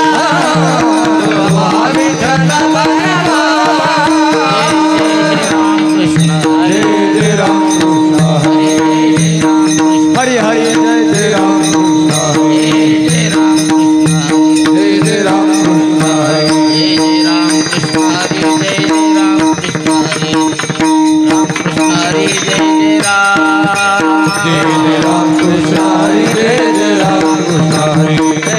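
Varkari kirtan music: a steady drone note held underneath, with pakhawaj drumming and hand cymbals.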